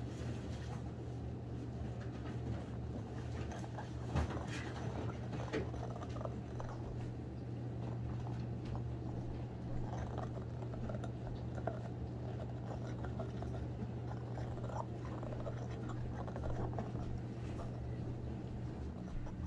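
A Pomchi (Pomeranian–Chihuahua mix) gnawing on a red rubber chew toy: scattered soft chewing clicks and rubbing of teeth on rubber, over a steady low hum.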